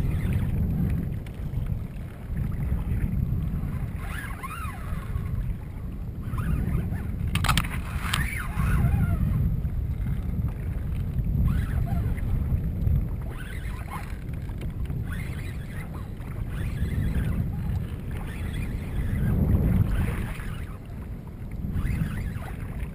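Wind buffeting the microphone in low, swelling and fading gusts, with water splashing against a fishing kayak's hull as it moves through choppy sea. A couple of sharp knocks come about seven and a half seconds in.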